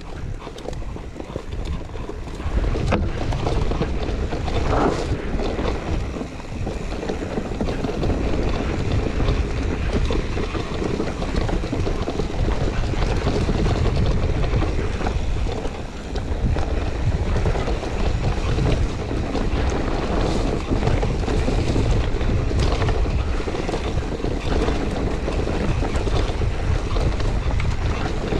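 Wind buffeting the action camera's microphone as a mountain bike descends a rough enduro trail at speed, with the bike knocking and rattling over the ground. The rush grows louder about three seconds in as the bike picks up speed.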